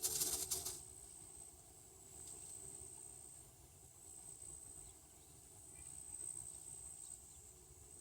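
A high, steady insect drone, swelling and fading in spells of a second or two, over quiet outdoor background. Right at the start there is a brief crackling, rattling burst lasting under a second.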